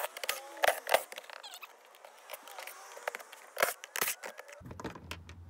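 Cordless impact driver backing bolts out of a plastic cab floor trim piece, its motor whirring in short bursts that rise and fall in pitch, among several sharp clicks and knocks from the tool and the plastic.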